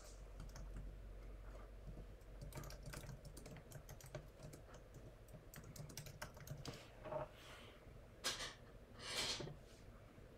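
Faint typing on a computer keyboard: runs of quick key clicks, thickest a few seconds in, with two short louder rushes of noise near the end.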